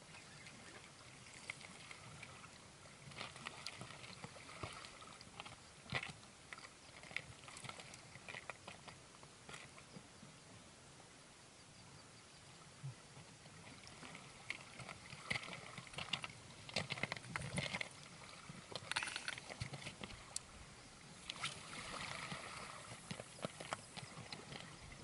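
Sea water lapping and splashing against shoreline rocks, with irregular sharp little splashes and clicks, busier in the second half.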